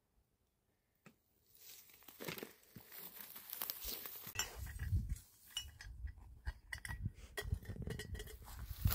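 Scattered crackles and clicks, as of dry straw and stubble being trodden and handled, over a low rumble of wind on the microphone that comes in about halfway. Near silence for the first second or so.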